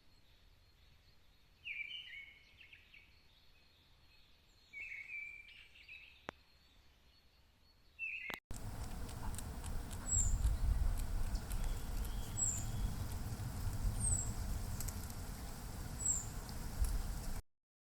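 Wild birds calling: short chirping phrases a few seconds apart, then after a sudden cut a louder stretch of low wind rumble with a high, thin, falling call note repeated four times, about two seconds apart.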